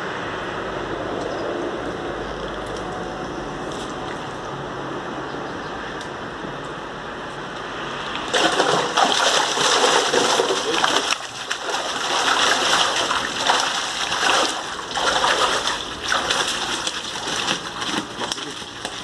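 Wooden-framed hand net being swept through the shallow water of a small fish tank. Loud, irregular splashing starts about eight seconds in and keeps going, after a steady watery background before it.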